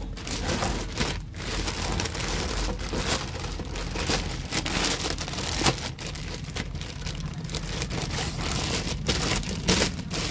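Clear plastic bag crinkling and rustling continuously, with many small crackles, as it is worked off a new servo-type voltage regulator by hand.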